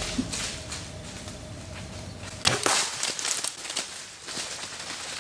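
Compound bow shot: one sharp crack of the bow going off and the arrow striking, about two and a half seconds in, followed by about a second of crackling and rustling through dry leaves and brush as the hit doe bolts.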